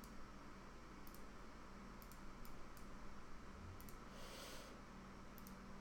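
Faint computer mouse clicks: a few separate single clicks spread over several seconds, over a steady low hum, with a short soft hiss about four seconds in.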